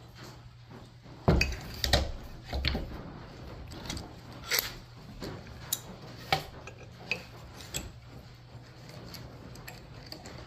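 Double-bit axe head set on a wooden board and fastened with a metal bar clamp: a string of irregular knocks and metallic clinks, loudest in the first half.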